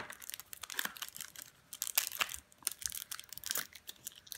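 Foil trading-card packet crinkling in the hands in short, irregular crackles as it is being opened.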